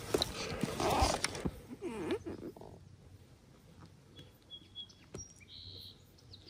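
A few knocks and rustles, as from fishing gear being handled, then near quiet lakeside air with a few faint, short, high bird chirps.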